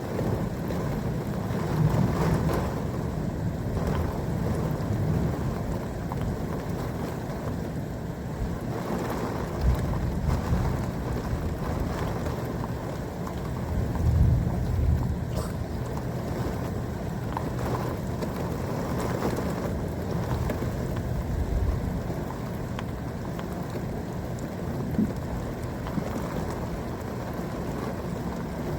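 Thunderstorm: steady rain and wind noise with several low rumbles of thunder swelling and fading, the strongest a little after the middle.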